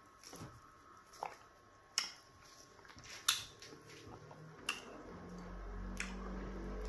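Soft wet handling of pounded yam fufu being pinched off and dipped into okra stew by hand, with a few sharp clicks. A low steady hum comes up from about four seconds in.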